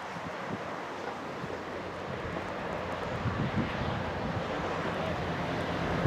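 Diesel locomotive engine rumble growing gradually louder, with wind buffeting the microphone.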